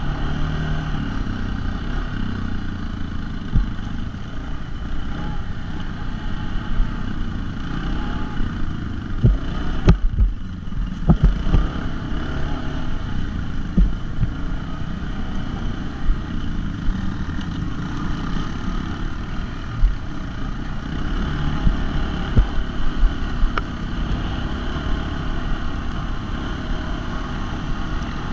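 ATV engine running steadily while riding over a rough grass track, with a few sharp knocks from bumps about ten seconds in.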